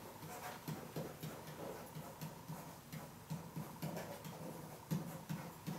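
Pen tapping and rubbing on an interactive whiteboard as letters are written by hand: a string of light, irregular ticks, about two or three a second.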